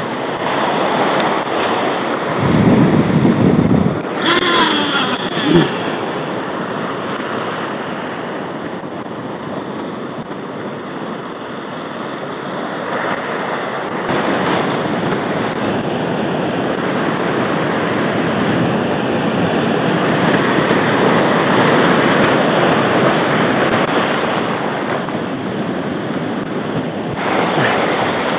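Surf washing and breaking over shoreline rocks, with wind buffeting the microphone in a loud gust a few seconds in. A brief gliding whine follows about four to five seconds in.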